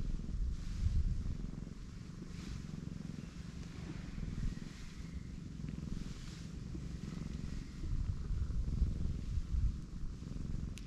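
Pregnant cat purring steadily as her belly is stroked, with a few soft rustles of a hand moving over fur.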